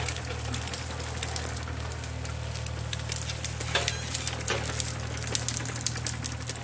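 Excavator's diesel engine running steadily, with scattered cracking and snapping of branches and brush over it.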